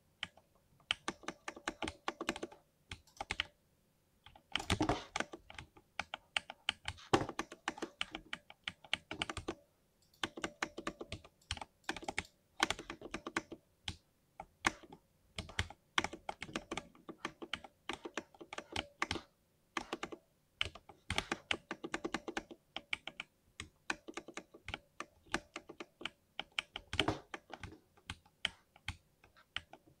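Typing on a 60% mechanical keyboard with lubed switches: quick runs of keystrokes broken by short pauses, with a few louder, deeper strokes. The typing starts right at the beginning.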